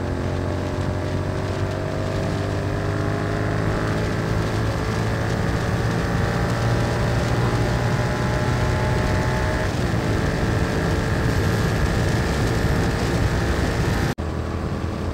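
Royal Enfield Continental GT 650's 648 cc parallel-twin engine pulling at high speed, its note climbing slowly for the first ten seconds as the bike gathers speed and then holding steady, with wind rush over it. The sound drops out briefly near the end.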